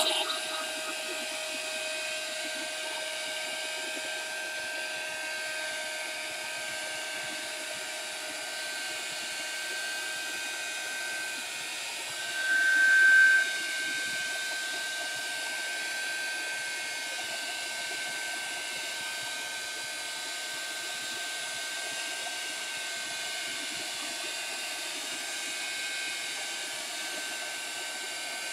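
Handheld hot-air drying tool blowing steadily with a constant motor whine, drying wet watercolour paint on paper. It swells louder for about a second, about twelve seconds in.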